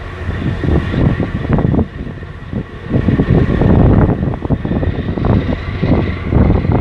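Wind buffeting the microphone over a steady low engine hum from a large container ship and its escort tug passing close by.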